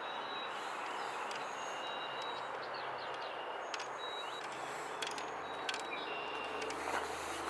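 Footsteps crunching on a gravel road, with birds chirping in short high calls. A low steady drone comes in about halfway through.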